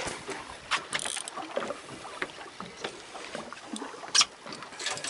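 Sounds aboard a small fishing boat at sea: water washing against the hull, with scattered sharp knocks and clicks, the loudest about four seconds in.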